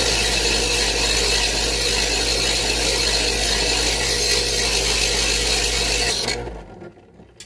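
Electric knife sharpener running, its motor humming steadily while a knife blade is drawn through the slot against the spinning grinding wheels with a continuous grinding rasp. The sharpener stops about six and a half seconds in.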